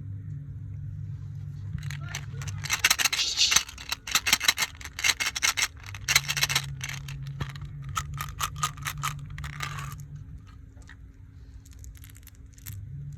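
Rapid crackling and clicking handling sounds, from about two seconds in until about ten seconds in, over a low steady hum.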